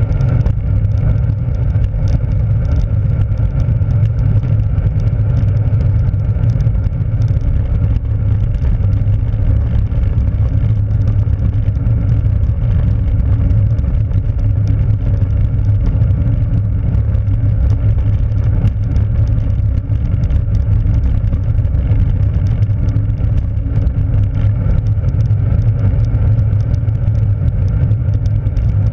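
Steady low wind buffeting on a bike-mounted camera's microphone, mixed with the rumble of a road bike's tyres rolling over coarse chip-seal.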